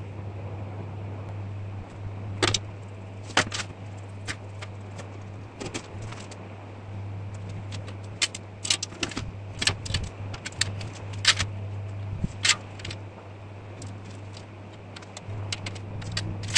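Irregular light metallic clinks and taps as a steel breastplate is handled, turned and set down on a steel workbench while its fluting lines are marked out, some in quick clusters, over a steady low hum.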